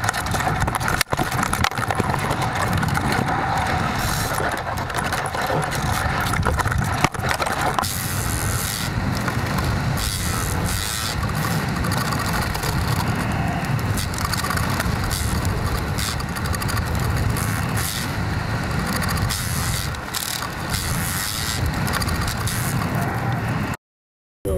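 Steady rushing wind noise with frequent rattling buffets on the microphone of a falling weather-balloon payload's onboard camera. It cuts off suddenly near the end.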